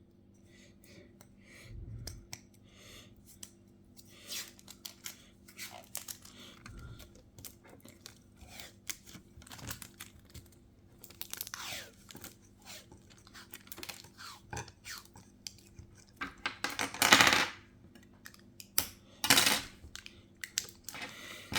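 Small clicks, taps and scrapes from phone parts and hand tools being handled on a workbench. Near the end come two louder, longer scraping or tearing sounds.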